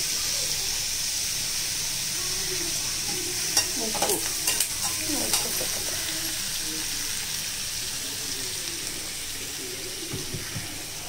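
Chopped vegetables frying in oil in a kadai with a steady sizzle, stirred with a slotted metal spatula that clinks and scrapes against the pan a few times about four to five seconds in. The sizzle slowly eases toward the end.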